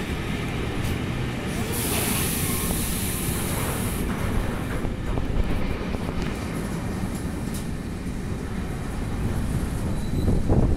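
Container wagons of an intermodal freight train rolling past close by, with a steady rumble and rattle of wheels on rail. A burst of high hiss about two seconds in lasts some two seconds.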